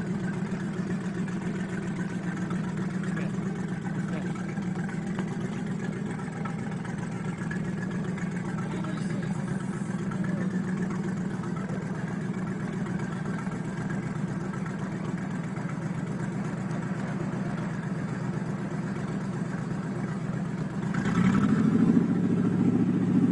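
An engine idling steadily, then revving louder with a rising pitch near the end.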